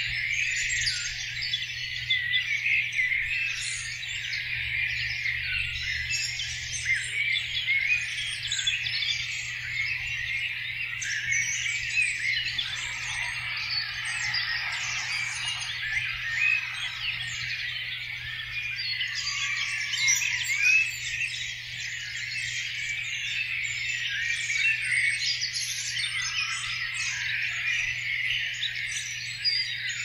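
Spring dawn chorus: many songbirds singing at once in a dense, overlapping mix of chirps, trills and whistled phrases, with lower, fuller notes joining around the middle. This is breeding-season territorial song, with a steady low hum underneath.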